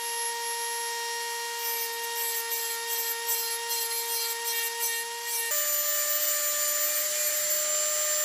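Dremel rotary tool running at a steady high whine while grinding down welds on steel, with a gritty grinding rasp under the whine. About five and a half seconds in, the whine jumps to a higher pitch.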